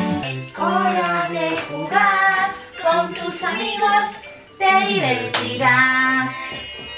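A song with a singing voice, sung in short phrases over music.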